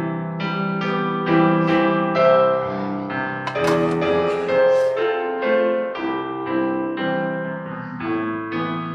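Piano music: a melody of single notes over sustained chords.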